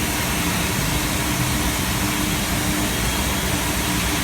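Gas-liquid transfer pump of a Nikuni LAX submerged sludge cleaner running steadily: an even machine hum with one held tone over a constant hiss.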